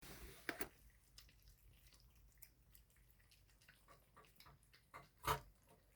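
Cats and kittens eating, faint wet chewing with many small irregular clicks. There is a louder click about half a second in and another near the end.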